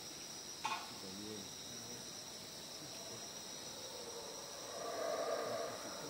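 Night insects trill steadily, with howler monkeys roaring in the distance; their rough, low calls swell up about four and a half seconds in. There is a single sharp click a little over half a second in.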